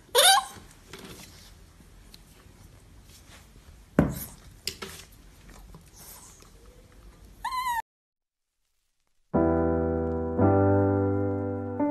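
A Pomeranian gives short, high-pitched whining yelps near the start and again about seven and a half seconds in, with a sharp click about four seconds in. After a brief silence, piano music begins about nine seconds in.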